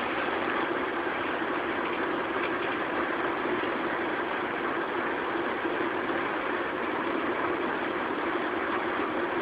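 Black-and-white cat purring steadily and loudly, unbroken for the whole stretch.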